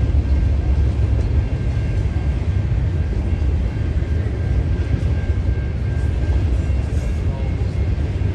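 A train running with a steady low rumble and a faint steady high whine.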